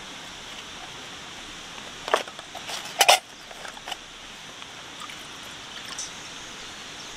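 Two short knocks of food and utensils against a camping mess tin, about two and three seconds in, the second louder, with a few faint clicks after, over a steady outdoor hiss.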